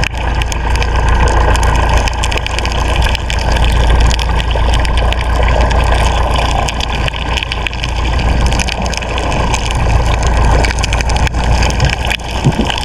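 Fishing boat's engine running steadily under way, a loud continuous rumble.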